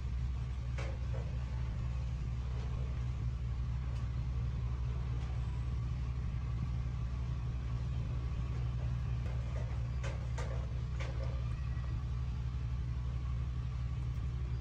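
A steady low mechanical hum, with a few faint light clicks about a second in and again around ten to eleven seconds in.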